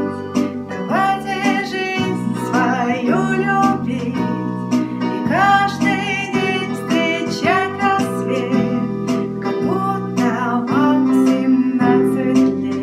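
Electronic keyboard playing a pop-ballad melody over steady held chords, the notes following each other every half second or so.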